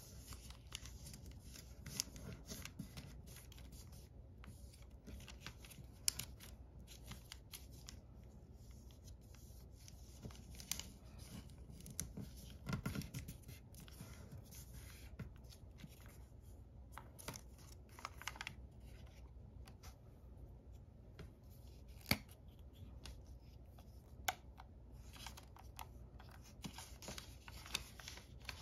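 Origami paper rustling and being creased by hand, with scattered sharp light taps and clicks of fingers and paper against the tabletop.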